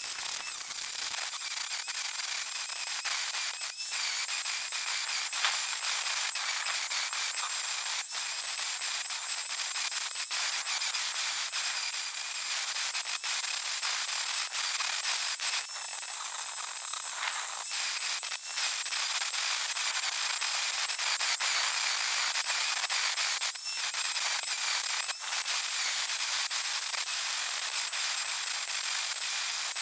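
Hitachi angle grinder running at speed with its disc against steel, grinding down fresh weld beads on a car's door pillar: a steady high whine over a harsh grinding hiss, with brief dips every few seconds.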